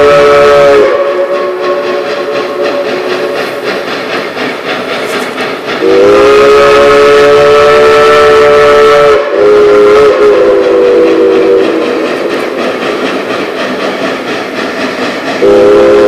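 Heisler geared steam locomotive No. 6 blowing its L&N three-chime steam whistle. A blast cuts off about a second in, a long blast comes about six seconds in, then a short break and a second blast that trails off, and another blast starts near the end. Between blasts the locomotive's working steam exhaust and hiss are heard.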